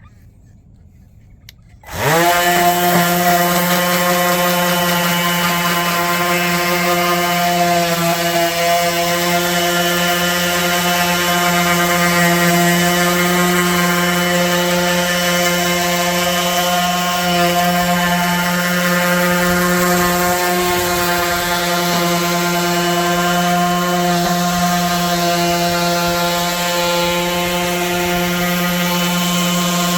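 Cordless orbital sander switched on about two seconds in, spinning up quickly, then running steadily with an even motor whine while rough-sanding a wooden tabletop with a fresh hook-and-loop sanding pad.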